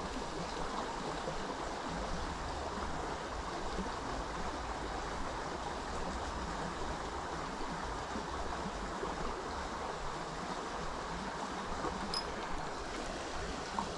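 Small creek flowing steadily, an even rush of running water.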